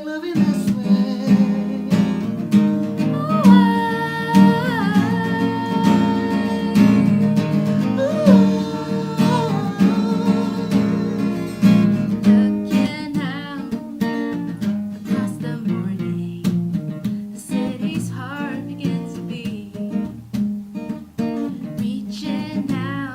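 Acoustic guitar strummed in steady chords, with a voice singing long held notes over it.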